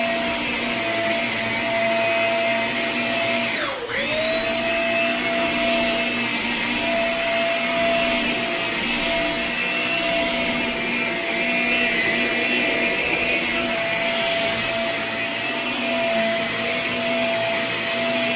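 Shark Rocket ZS350C corded stick vacuum running on carpet, its motor giving a steady high whine over a rushing of air. About four seconds in, the motor's pitch briefly drops and comes back up.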